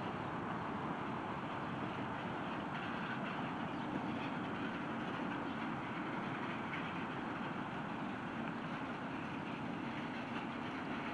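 Steady background noise with a faint constant low hum, unchanging throughout, with no distinct events.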